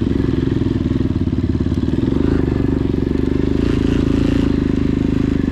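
Dirt bike engine running steadily under load while climbing a steep, rocky dirt track, picking up slightly about two seconds in.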